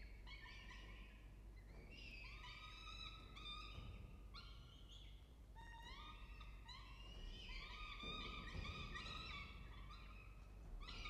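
Downy peregrine falcon chicks begging while being fed, giving a run of repeated, overlapping shrill calls at irregular intervals over a low steady hum.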